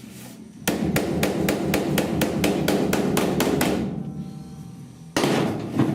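Rapid, even hammer blows on the sheet-metal roof patch panel, about five a second for some three seconds, with the metal ringing under them: body hammer work against a spoon to raise a sunken spot. A short, louder burst of noise comes near the end.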